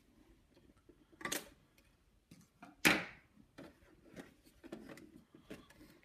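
Hard plastic toy fridge being handled: a series of clicks and knocks from its doors and parts, with two louder clacks, one about a second in and the loudest about three seconds in.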